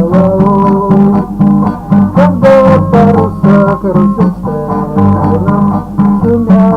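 Guitar music with a steady strummed rhythm and a melody line over it, part of a Soviet bard campfire song.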